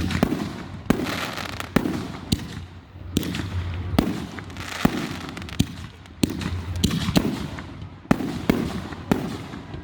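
Fireworks display: sharp bangs about once a second, each followed by crackling and hissing that dies away.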